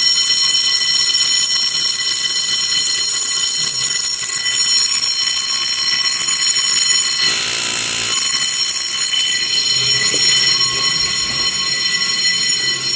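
Fire alarm bell ringing continuously, a loud steady metallic ring rich in high overtones.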